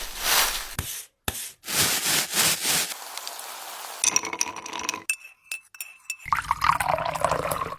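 A run of short stock action sound effects played one after another: two loud noisy bursts, a hiss, a few clicks and held tones, then a falling tone near the end.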